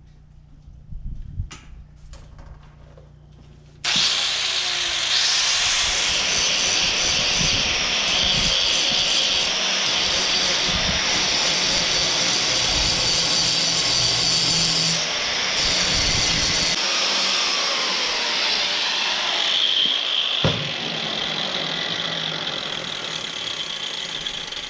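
Angle grinder grinding the corners of a steel plate round. After a few light clicks it bites into the metal about four seconds in and runs steadily, easing off near the end.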